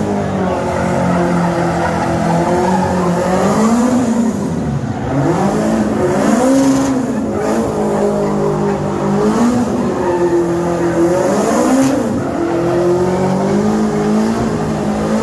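Small hatchback's engine revving up and down again and again as it drifts in circles, its tyres skidding on the asphalt.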